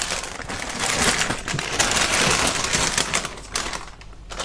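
Thin black plastic bag crinkling and rustling in dense crackles as the air purifier's plastic-wrapped main filter is pulled out of its housing, easing briefly near the end.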